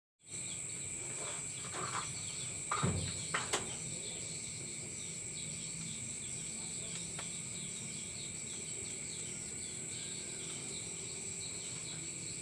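Insects chirping steadily in a continuous high-pitched drone with a fast pulsing. A few brief knocks sound about three seconds in.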